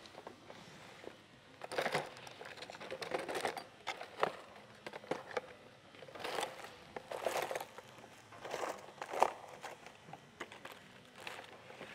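Rustling and handling noises of grooming supplies being picked up and moved, in short irregular bursts.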